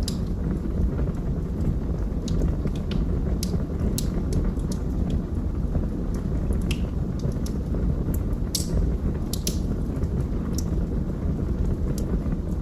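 Wood fire burning in a fireplace: a steady low rumble with scattered, irregular sharp crackles and pops.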